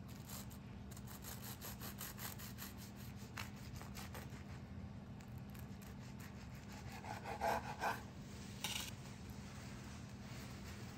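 Serrated bread knife sawing back and forth through a toasted challah sandwich: a quick run of rasping strokes on the crisp crust, then a few louder crunches about seven to nine seconds in.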